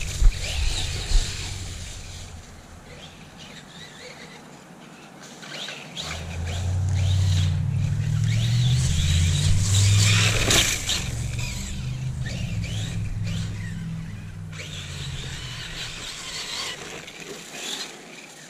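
Losi Lasernut RC truck running on 4S LiPo: the brushless motor whines and the tyres squeal as it slides through the turns. It gets louder from about six seconds in, then fades toward the end.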